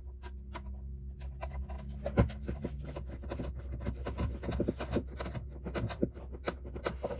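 A Y-shaped hex key driving a bolt into a UFS receptor through an inline skate boot's sole plate, drawing the receptor down. The sound is quick, irregular clicks and scrapes of metal and plastic, with a single sharper knock about two seconds in.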